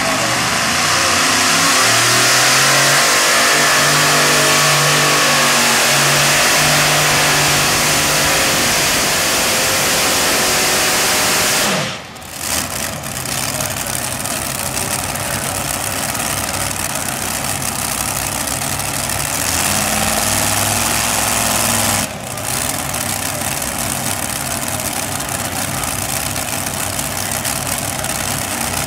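Multi-engine modified pulling tractors' engines running loud at the starting line, their pitch stepping up and down as the throttle is blipped. About 12 seconds in the sound cuts to a second tractor, whose engines rev up and back down once just before 20 seconds in.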